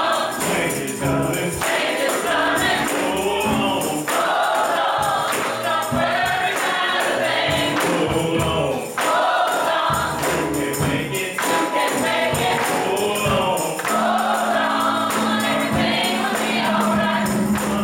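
Gospel choir singing together, with a tambourine keeping the rhythm.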